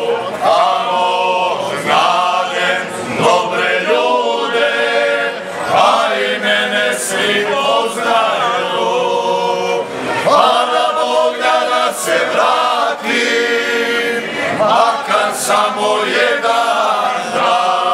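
Ganga: a group of men singing unaccompanied in the close, dissonant harmony of this Dinaric folk style, in sung phrases of a few seconds with brief breaks between them.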